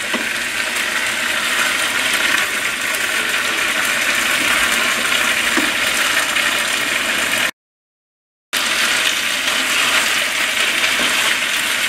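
Mixed vegetables in a thick paste sauce sizzling over high heat in a stainless steel pot while they are tossed with wooden spatulas: a steady frying hiss. The sound cuts out completely for about a second partway through.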